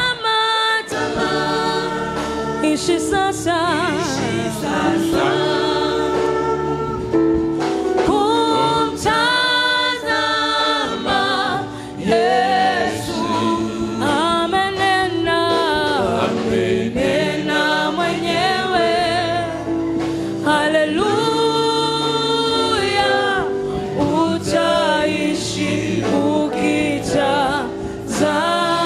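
Gospel worship song sung by voices with a choir, the held notes wavering with vibrato.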